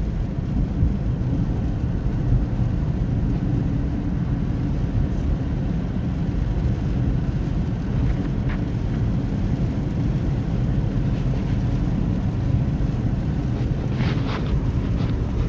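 Steady low rumble inside a car's cabin as it creeps along in heavy rain, with rain on the car.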